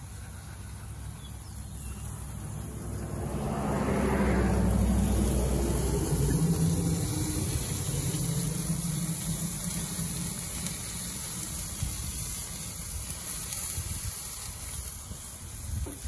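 A motor vehicle driving past, its engine hum swelling to a peak about four to six seconds in and then slowly fading away.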